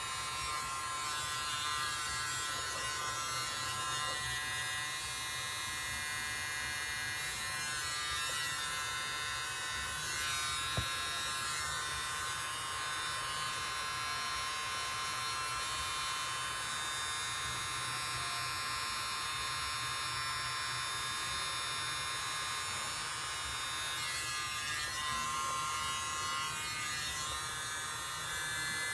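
Steady high whine of a tiny battery-powered mini leaf blower blowing acrylic paint outward. Its pitch wavers near the end, and there is a single light click at about 11 seconds.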